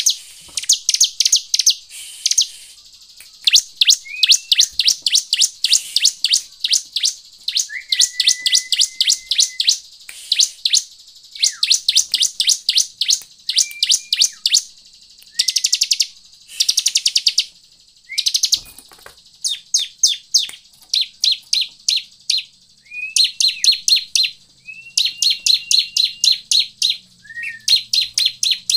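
Bar-winged prinia (ciblek) singing: rapid, high, dry trills repeated in phrases of about a second with short breaks between them. Some phrases open with a short lower whistle.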